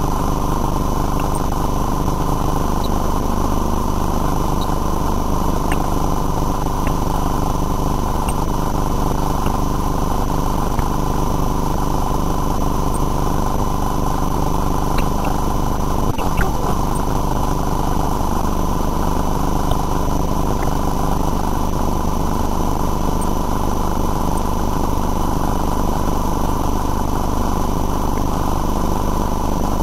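Steady mechanical drone, engine-like, with a constant high-pitched whine over it and a few faint ticks.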